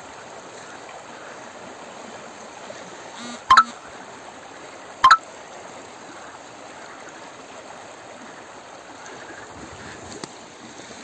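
Shallow stream rushing and splashing as people wade in it, grabbing for trout by hand. Two short, sharp, loud sounds about a second and a half apart cut through near the middle.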